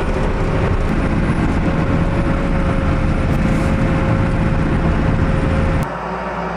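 Snowcat diesel engine running steadily under way, heard from inside the cab, with a steady whine over a low hum. About six seconds in it cuts suddenly to a quieter steady engine sound.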